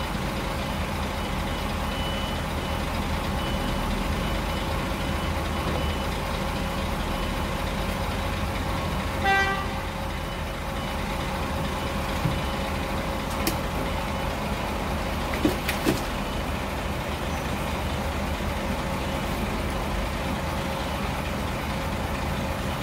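Steady low rumble of an engine idling, with a faint beep repeating about once a second for the first several seconds, a short tooting sound about nine seconds in, and a few sharp clicks a little later.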